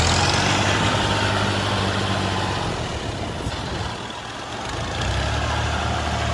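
Heavy diesel engine of farm machinery running hard, its low note easing off about three seconds in and coming back up about a second later.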